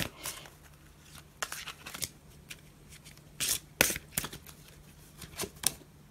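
Large oracle cards being handled and shuffled: a scattering of short papery slaps and slides, a few seconds apart.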